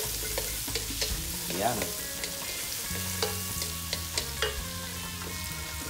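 Chopped garlic sizzling in hot oil and butter in a metal wok, with a wooden spatula stirring and scraping against the pan in scattered taps.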